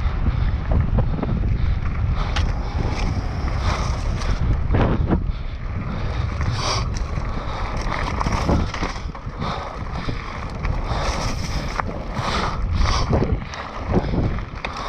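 Wind buffeting the camera microphone and the tyres of a mountain bike running fast over a dirt forest trail, with frequent short knocks and rattles from the bike over rough ground.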